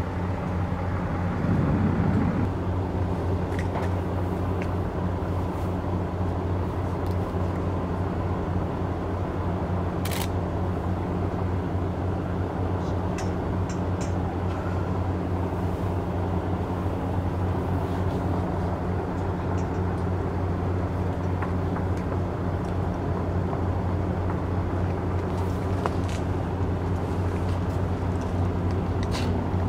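Diesel engines of heavy-haul tractor units idling with a steady low hum, with a single sharp click about ten seconds in.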